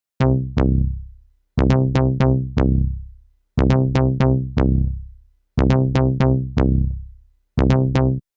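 Electronic music: short, bass-heavy synthesized notes on one pitch, struck in groups of four (two at the start) about every two seconds. Each group dies away before the next, and the last is cut off suddenly.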